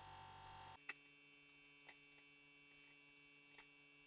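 Near silence: a faint steady electrical hum, with three faint ticks.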